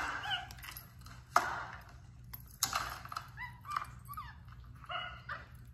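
A series of short animal calls, about five in all: sharp bark-like yelps and brief squeaky chirps at irregular intervals.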